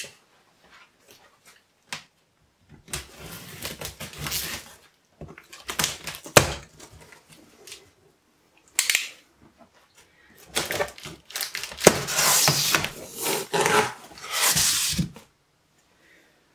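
Large cardboard shipping box being opened by hand: its flaps are pulled back and folded open with scraping, rustling and creaking cardboard in several bursts, including a sharp snap about six seconds in and a long stretch of handling near the end.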